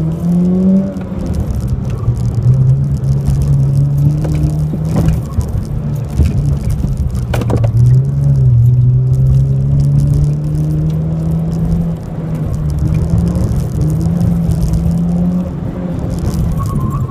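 Car engine heard from inside the cabin on a slalom run, its pitch climbing and dropping again and again as the car accelerates and slows between the cones. There is a single sharp knock about seven seconds in.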